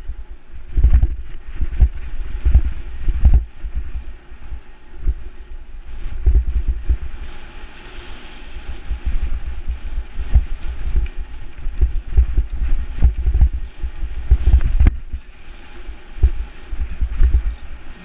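Mountain bike rolling over a rough dirt singletrack, heard through a GoPro: a constant low rumble of wind on the microphone with irregular thumps and rattles as the bike hits bumps in the trail.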